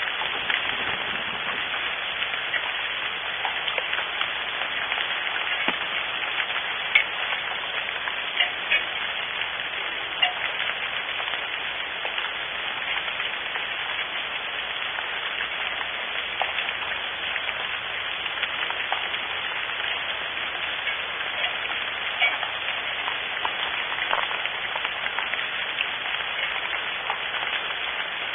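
Steady rain falling on a wooden nest box, heard from inside the box, with scattered sharper drop hits now and then.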